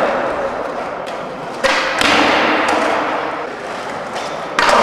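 Skateboard slapping down on the skatepark floor with two sharp hits, one about a second and a half in and one near the end. Wheels roll between them, and each hit is followed by a long echo.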